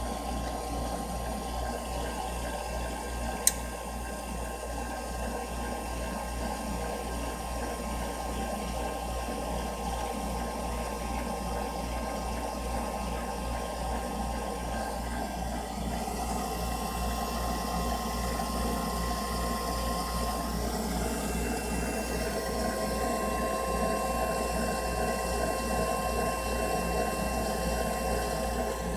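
Furnace running with a steady low hum and a thin, steady whine, with one sharp click about three and a half seconds in; about halfway through the sound grows slightly louder and changes a little.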